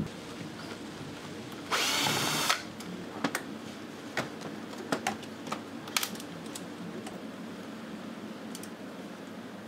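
Cordless drill-driver with a screwdriver bit spinning in one short burst, under a second long, about two seconds in. It is followed by scattered sharp metal clicks and clinks of hand tools and screws on a steel workbench.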